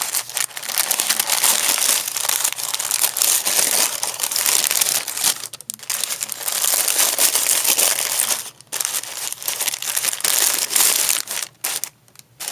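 Paper sandwich wrapper crinkling and rustling as it is handled and opened close to the microphone, in long stretches with a few brief breaks, dying down near the end.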